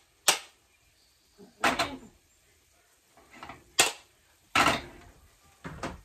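Potato masher knocking against a stainless steel pot of mashed potatoes: a handful of sharp clanks at irregular intervals, some in quick pairs.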